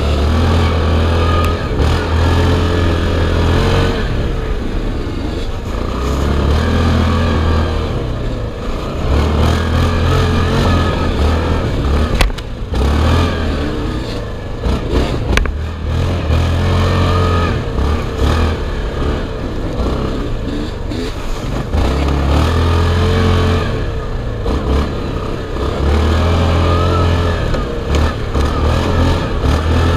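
Quad ATV's engine revving up and down as it is ridden hard along a bumpy dirt trail, its pitch rising and falling over and over with the throttle. Two sharp knocks stand out near the middle.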